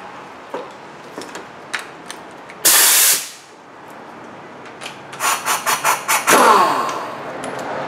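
Pneumatic impact wrench (air gun) running a nut on: a short loud burst of air hiss about three seconds in, then a rapid hammering run from about five seconds, ending in a falling whine as the air motor spins down.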